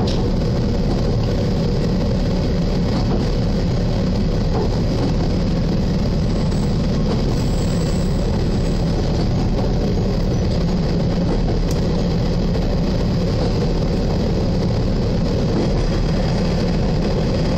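Diesel railcar's engine drone and the railcar's vibration, picked up heavily through the front window the phone is pressed against, so the sound is steady, low-heavy and distorted.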